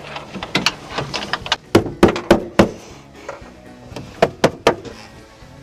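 Background music made of sharp, plucked-sounding notes at an uneven pace, with a few thunks among them.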